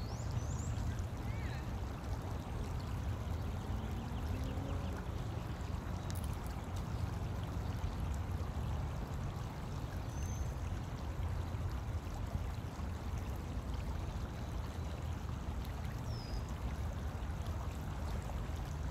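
Steady outdoor background noise, heaviest in a low rumble with an even hiss above it, and a few faint, short, high bird chirps: one near the start, one about ten seconds in and one about sixteen seconds in.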